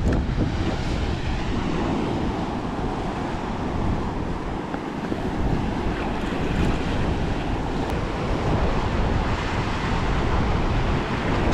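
Ocean surf washing over a rock shelf, with wind buffeting the microphone in a steady low rumble.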